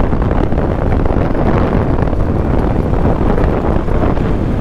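Wind buffeting the microphone of a moving motorcycle, a steady rushing noise over the sound of the engine and the road.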